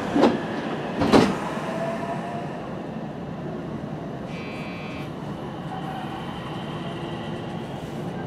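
JR West 225 series electric train running, heard from inside a cab: a steady rumble of running noise, with two sharp clacks near the start and a brief high-pitched tone about four seconds in.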